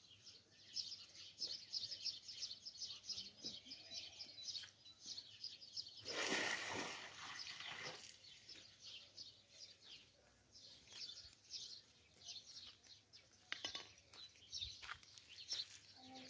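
Small birds chirping busily, many quick high chirps overlapping throughout. About six seconds in, a loud rush of noise lasting about two seconds briefly covers them.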